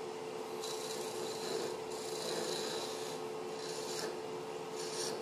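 Wood lathe running with a steady hum while a turning tool takes a light peel cut across the outside of a spinning soft white maple box part, the shavings hissing off in three passes: about half a second in, around three seconds in, and near the end.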